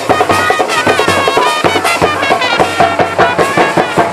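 Traditional Indian music: a quick drum beat under a wavering melody line from a wind instrument.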